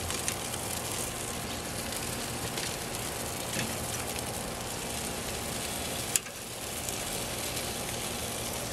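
Bacon-wrapped jalapeño poppers sizzling on the hot grate of a charcoal drum smoker, a steady hiss. A sharp click comes about six seconds in, as metal tongs strike the grate.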